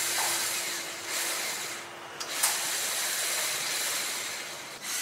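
LEGO Technic electric motor whirring as it turns a worm gear to move the hoist's lift platform. It runs for about two seconds, drops off briefly with a click, then runs again for about two and a half seconds before stopping.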